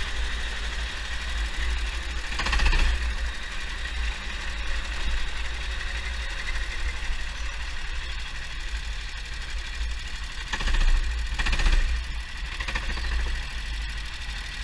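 Four-stroke kart engine heard from the onboard camera, running at low speed with a steady low rumble and swelling briefly on the throttle about two and a half seconds in and three times near the end.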